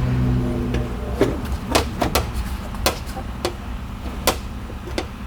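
Sharp metallic clicks and taps, about seven of them at uneven spacing over four seconds, from a paintless dent repair tool working a dent in an aluminum lift gate. A steady low hum runs underneath for the first second or so.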